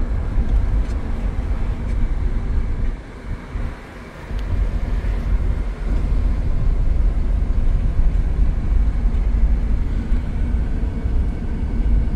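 Road and wind noise inside a moving car with a rear window open: a steady low rumble and rush of air, dipping briefly about three seconds in.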